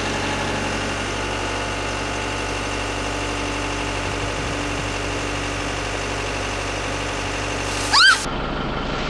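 Caterpillar compact track loader's diesel engine idling steadily. About eight seconds in, as the loader's bucket dumps ice water, there is a short loud scream.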